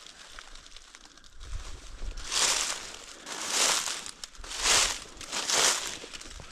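Footsteps crunching through dry leaf litter, starting about two seconds in and going at about one step a second.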